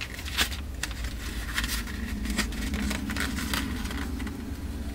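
An eyeshadow palette and its packaging being handled and opened: a run of small, irregular clicks and rustles, with a faint low hum in the middle.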